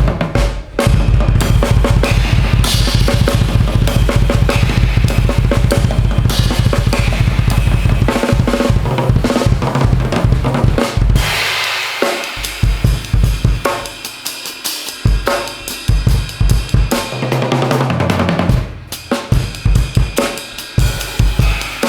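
Drum kit played solo: fast, dense strokes over rapid bass-drum hits, then a cymbal crash wash and a sparser, accented pattern of snare, bass drum and cymbal hits.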